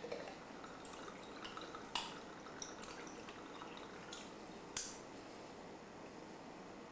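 Gin poured from a glass bottle into a metal shaker tin full of ice: a faint trickle of liquid, broken by a few sharp clinks, the loudest about two seconds in and just before five seconds.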